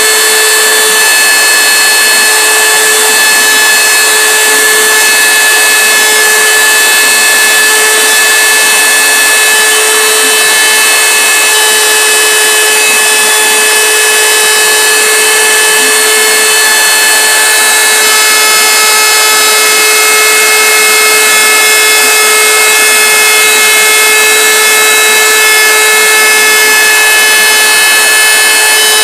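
Homemade CNC router's high-speed spindle running steadily as a small bit engraves lettering into a flat board: a loud, even whine of several high tones over the hiss of the cut.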